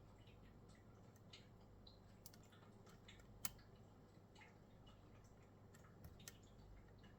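Faint, irregular small clicks of a lock pick working the pins inside a Winkhaus pin-tumbler cylinder, with one sharper click about three and a half seconds in.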